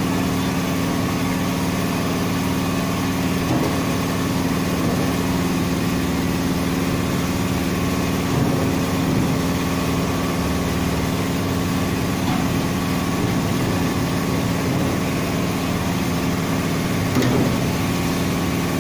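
An engine idling steadily with an even hum, and a few light knocks of empty plastic water jugs being handled.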